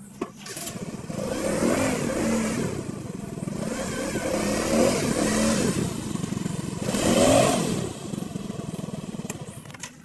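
Yamaha automatic scooter's engine revved up and down. It comes in about half a second in, surges loudest around seven seconds, then falls back toward idle.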